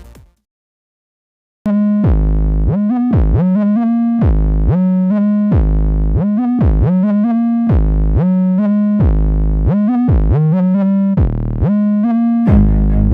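Electronic background music: after about a second and a half of silence, a synthesizer line starts, with repeated notes over a heavy bass and pitch swoops that dip down and come back up.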